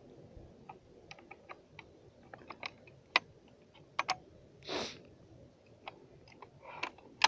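Metal parts of a 14.5 mm anti-aircraft machine gun clicking and knocking together as they are fitted by hand: scattered light clicks, with sharper knocks about three seconds in, twice around four seconds and near the end, and a short scrape just before five seconds.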